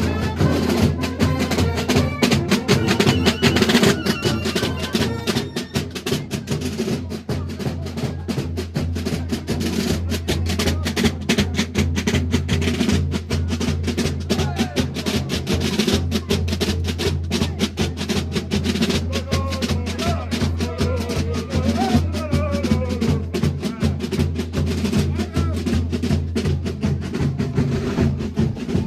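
Carnival marching band in the street: drums beating a rapid, rolling rhythm, with brass horns playing in snatches over it.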